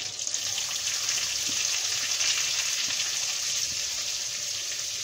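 Hot oil sizzling and crackling steadily in a wok, with mustard seeds, curry leaves and dried red chillies frying in it: the tempering (tadka) for upma.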